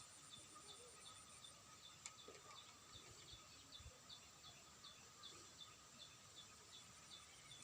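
Faint outdoor ambience of insects and birds: a steady high insect drone, with a short chirp repeating nearly three times a second. A single sharp click about two seconds in.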